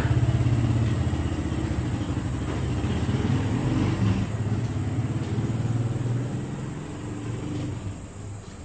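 A motor vehicle engine running steadily with a low hum, fading near the end.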